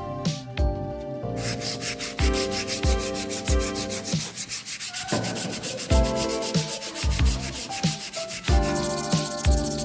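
Wood being sanded, a dense scratchy hiss from about a second in until near the end, over background music with a steady beat.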